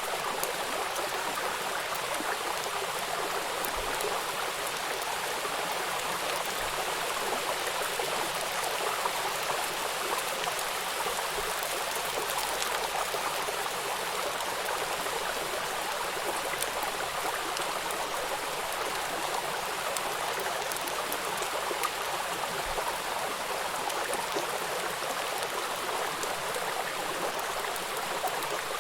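Stream flowing steadily: an even, unbroken rush of running water.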